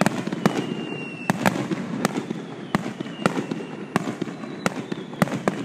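Aerial fireworks going off: a rapid, irregular series of sharp bangs over a continuous crackling rumble, with a faint high whistle running through.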